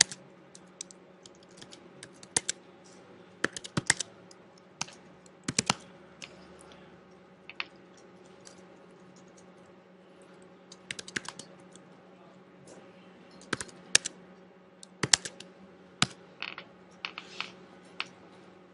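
Computer keyboard being typed on in short irregular bursts of key clicks with pauses between them, over a steady low hum.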